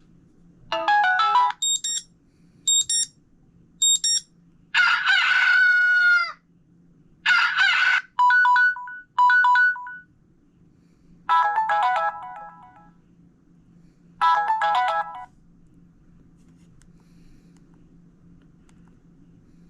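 Samsung Admire phone alarm tones played one after another, each a short snippet of beeps or a melody lasting a second or two. One of them is a rooster crow. The last tone stops about three-quarters of the way through.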